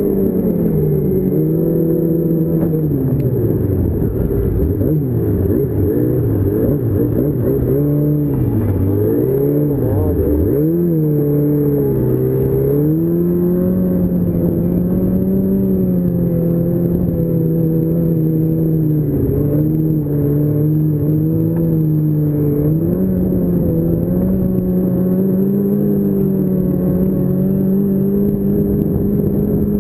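A 2006 Yamaha Apex Attak snowmobile's four-stroke four-cylinder engine running under way along the trail. Its pitch dips and climbs again several times in the first dozen seconds as the throttle comes off and back on, then holds at a fairly steady cruise with small rises and falls.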